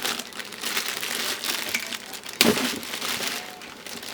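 Plastic packaging crinkling and rustling as a hookah hose is handled, with one sharper, louder crackle about two and a half seconds in.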